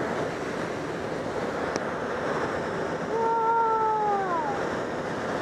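Steady rush of airflow and wind noise inside a glider cockpit under aerotow. About three seconds in comes a held voice-like note that slides down at the end.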